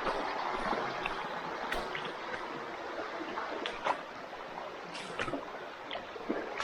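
Mountain stream water running steadily, with a few short sharp sounds scattered through it.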